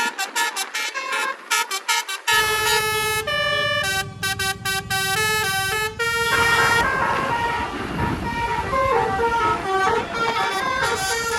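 Bus telolet horn of the Basuri type playing its tune: a quick run of short stepping horn notes, then longer held notes over a low engine rumble that comes in about two seconds in.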